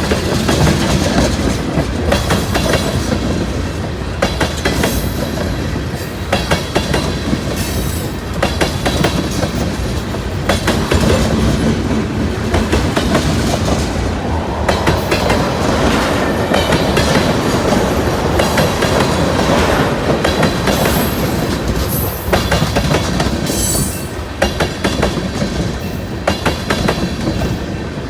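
Freight train cars rolling past at close range, wheels clicking steadily over the rail joints.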